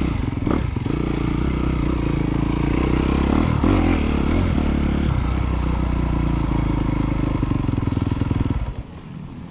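Dirt bike engine running close by, steady with small shifts in pitch, then dropping away suddenly about a second before the end.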